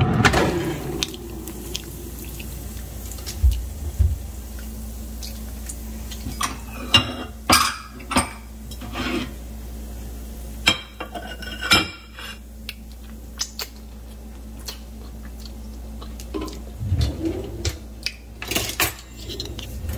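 An air fryer's plastic basket being pulled out and handled, with scattered clatters and knocks of the basket and kitchen utensils over a steady low hum.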